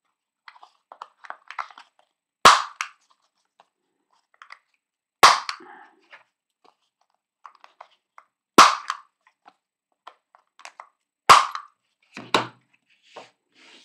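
Handheld corner rounder punch snapping through a paper tag four times, about three seconds apart, one snap for each corner. Light paper rustling and handling between the snaps.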